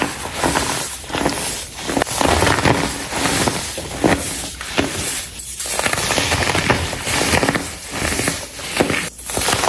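Pressed baking soda blocks crunching and crumbling as they are crushed, a dense crackle that comes in repeated squeezes with short pauses between them.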